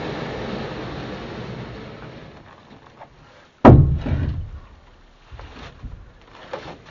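A steady rushing noise that fades away over the first few seconds, then a single loud thump a little past the middle, followed by a few faint clicks and knocks.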